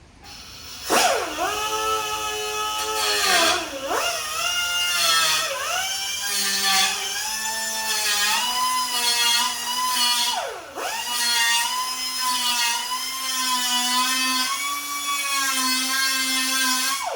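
Die grinder running with a high whine that slowly climbs in pitch, dipping sharply and recovering about three times as it is let off or loaded.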